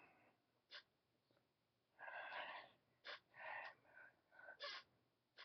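A man's voice talking quietly in short phrases, with sharp hissing 's' sounds; the words are faint.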